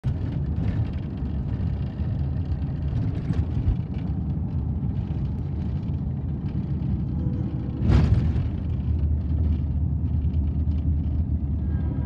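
Car cabin noise while driving: a steady low rumble of tyres and engine, with a brief louder rush about eight seconds in.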